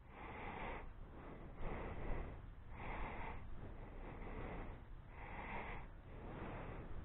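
A person breathing close to the microphone, in and out in a steady rhythm of about one breath sound a second.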